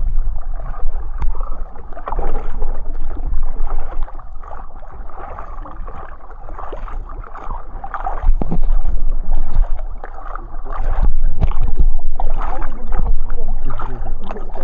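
Water splashing and gurgling around a small rowed boat, with wind rumbling on the microphone.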